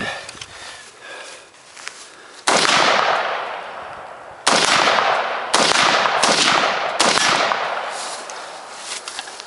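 Four gunshots from an AR-15 rifle and a handgun: the first about two and a half seconds in, then three more at roughly one-second to one-and-a-half-second gaps, each trailing off in a long echo.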